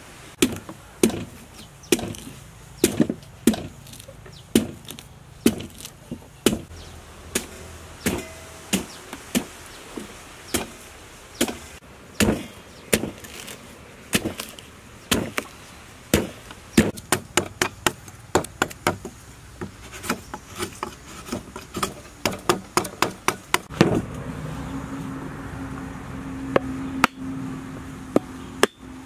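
Cleaver chopping the husk off a young green coconut on a wooden table: dozens of sharp, irregular chops, at times in quick runs of several a second. A steady low hum sets in about six seconds from the end.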